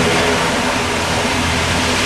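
Aircraft turbine engines running steadily: a loud, even rush with a steady hum of several tones underneath.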